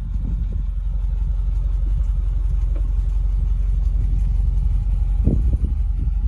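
BMW M850i's twin-turbocharged 4.4-litre V8 running with a steady low rumble as the car drives, with a short louder swell about five seconds in.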